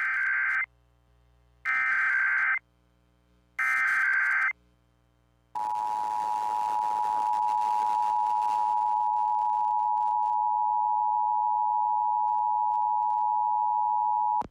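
Emergency Alert System SAME header: three short bursts of chirping data tones about two seconds apart, the first already under way. These encode the Required Monthly Test code. About a second after the last burst comes the EAS attention signal, two steady tones at 853 and 960 Hz sounding together for about nine seconds and cutting off abruptly.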